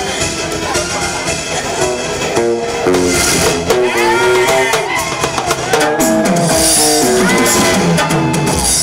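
Loud instrumental music: a melody of short stepped notes with sliding pitch bends, over a drum beat.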